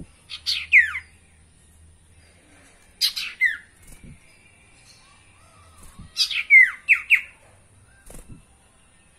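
Common iora (sirtu, cipoh) calling: three bursts of sharp notes that sweep down in pitch, about three seconds apart, with a fainter call near the end.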